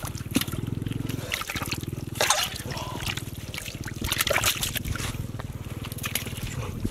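Muddy water trickling and splashing as hands dig and scoop in a small mud pit, with a few sharper splashes along the way.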